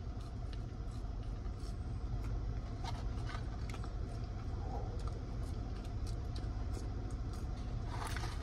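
Steady low hum inside a car cabin, with faint scattered clicks and rustles of a paper fry carton being handled and fries being chewed.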